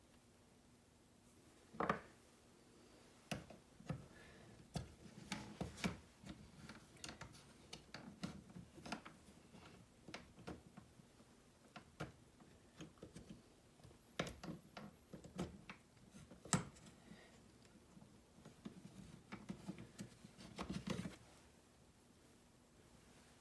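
Irregular small clicks, taps and rubbing of hands handling and fitting the plastic parts of a car door lock actuator, with a quick cluster of clicks about 20 seconds in.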